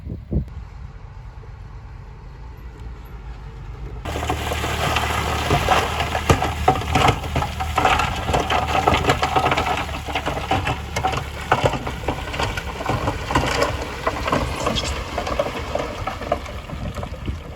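Diesel engine of heavy earthmoving machinery running steadily. About four seconds in the sound cuts abruptly to a louder engine with dense crackling and crunching of gravel and stones.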